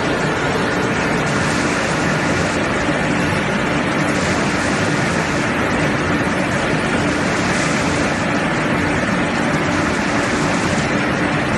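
A line of vertical pellet mills running together: a steady, loud machinery din with a faint hum running through it.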